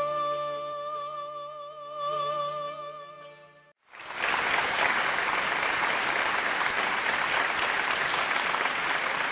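A woman's singing voice holds the final note of an operetta song over its accompaniment, fading out just under four seconds in. Then audience applause breaks out and goes on steadily.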